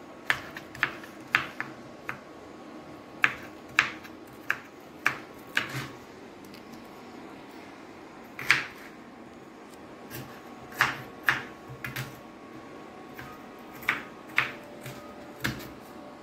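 Kitchen knife chopping small onions on a wooden cutting board: sharp, irregular knocks of the blade striking the board, some in quick pairs, with pauses of a second or two between bursts.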